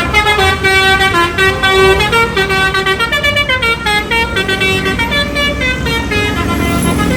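Bus telolet horn, a multi-tone musical air horn, playing a quick melody: its notes step up and down several times a second.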